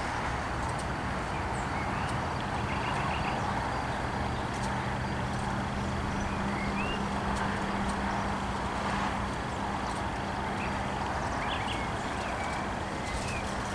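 A steady low mechanical hum over outdoor background noise, with short bird chirps now and then.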